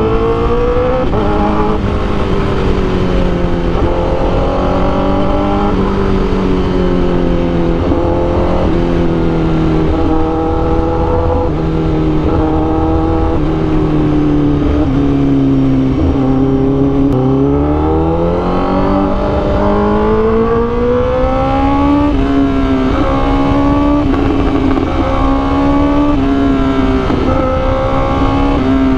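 Honda CBR1000RR-R Fireblade's inline-four engine running hard through an SC Project CRT exhaust while riding, its revs climbing and dropping with throttle and gear changes, with a long rising pull about two-thirds of the way through. The engine is tuned with a Rapid Bike Racing module, and its sound is called angry, like a monster.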